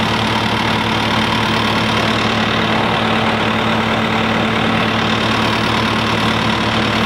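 Bobcat compact track loader's engine running steadily at idle, a constant even drone.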